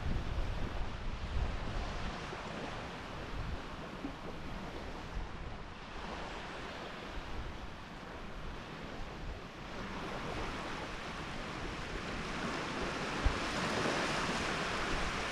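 Wind blowing on an outdoor microphone, with uneven low buffeting and a steady rushing noise that grows louder from about ten seconds in.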